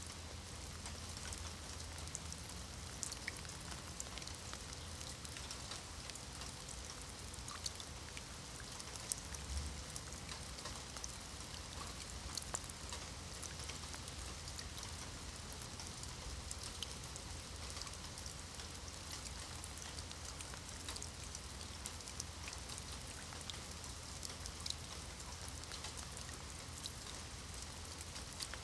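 Light rain falling steadily on wet stone paving and thin puddles: an even hiss with many separate drops ticking on the water and stone.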